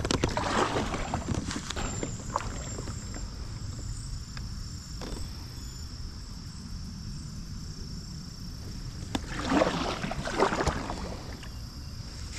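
Kayak paddle strokes splashing in shallow creek water, in two short bouts: one near the start and one about three-quarters of the way through, with quieter water movement between.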